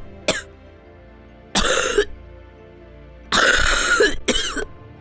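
Wheezy coughing: four harsh coughs spaced about a second apart, over soft background music. This is a cough with a wheeze, which comes with something lodged in the airways or with asthma or allergies.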